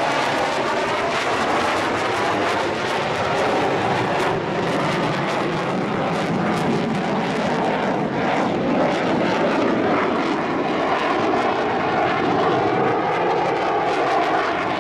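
Mitsubishi F-15J fighter's twin afterburning turbofan engines, a loud, steady jet sound with a crackling edge as the jet banks past overhead. The pitch sweeps slowly down and back up as it goes by.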